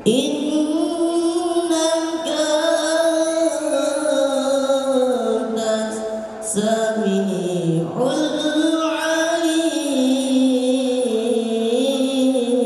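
A young man's solo voice chanting into a hand microphone, long ornamented phrases that waver and glide in pitch, with short pauses for breath between phrases.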